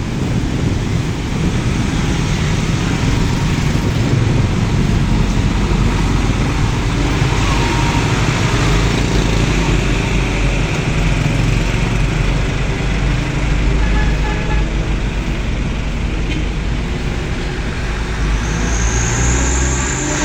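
Road traffic passing, with vehicle engines running and a steady low hum throughout. A brief high squeal comes near the end.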